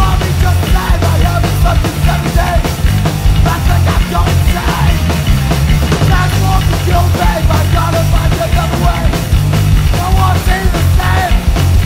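Loud hardcore punk band playing: distorted electric guitar, bass and drums in a dense, full mix.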